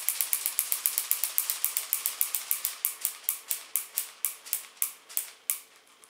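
Rubber-band-driven crank and gear mechanism of a Tim Bird flapping-wing ornithopter toy ticking rapidly, a click at each stop of the crank. The clicks slow from about seven a second to about four a second and fade out about five and a half seconds in.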